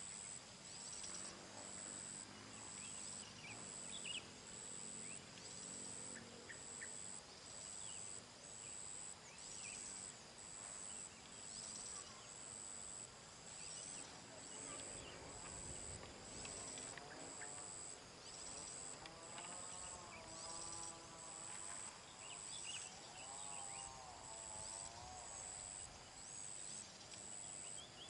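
Outdoor ambience of insects and birds: a high insect chirp repeating about once a second over a steady high insect drone, with short scattered bird chirps. A wavering pitched call comes in twice in the second half.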